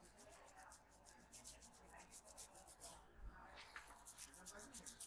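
Faint, rapid rubbing of hands over hair and scalp during a head massage, about seven even strokes a second. It comes in two runs with a short break just after the three-second mark.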